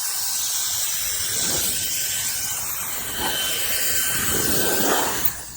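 Electric air duster's high-speed fan running, a steady jet of blowing air with a thin motor whine over it, shutting off near the end.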